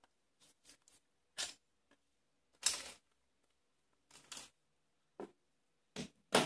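Short plastic clicks and rustles from handling a cordless oscillating multi-tool and its slide-in battery pack, coming at irregular intervals, with the loudest about three seconds in and at the end.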